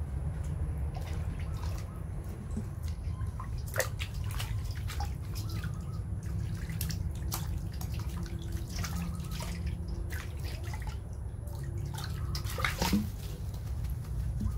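Water splashing and dripping in a stainless-steel basin as a baby monkey is washed by hand: scattered short splashes and drips over a low steady rumble.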